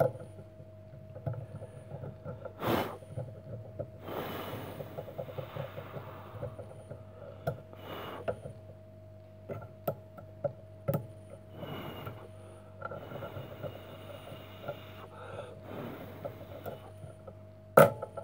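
Scattered sharp clicks and soft rustling of hands handling small parts over a steady electrical hum.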